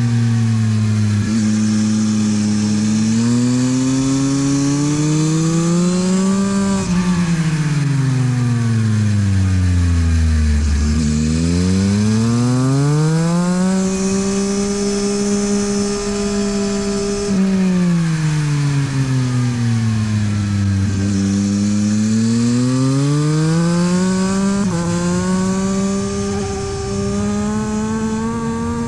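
Yamaha MT-09 SP's three-cylinder engine through a LeoVince exhaust, ridden hard on track. The revs climb for several seconds, fall sharply about seven seconds in, climb again and hold steady for a few seconds, fall, then climb once more. Short jumps in the engine note mark the gear changes.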